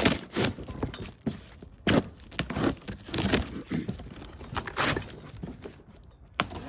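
Cardboard boxes being handled and opened: irregular crumpling, crinkling and rustling of cardboard and paper, with a few sharper knocks and tears.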